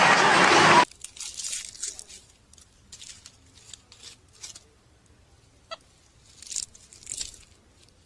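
Loud monster-truck arena noise, crowd and engine together, cutting off abruptly under a second in. After it, faint scattered crunching and rustling as a monkey handles food from a hand on dry leaf litter, with one short high squeak about halfway through.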